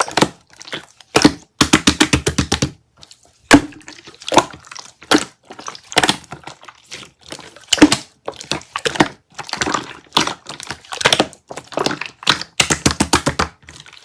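Hands squishing and pressing slime, making runs of quick crackling pops as air pockets burst, separated by short pauses.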